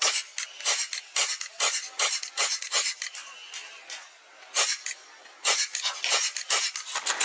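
A run of short, sharp crunching clicks, about two or three a second, pausing for a second or so in the middle before resuming.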